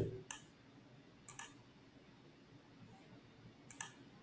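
A few faint, short clicks of a computer mouse, spaced about a second or more apart, as a chart is panned and marked up on screen.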